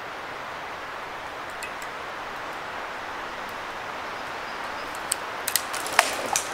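Dead softwood cracking and snapping in a quick irregular run of sharp clicks from about five seconds in, as a thin dead trunk is gripped and pulled over. Under it runs a steady woodland hiss.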